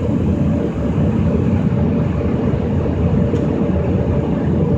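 An automatic car wash's blower dryer running at the drying stage, a steady low rush of air heard from inside the car.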